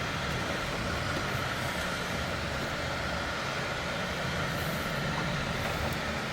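Steady low rumble of a running vehicle with an even noise over it, unchanging throughout.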